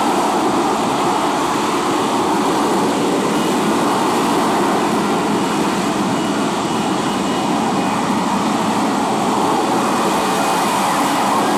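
Lockheed F-35B's Pratt & Whitney F135 jet engine and lift fan running at high power in slow, hovering flight: a loud, steady noise with no change in level.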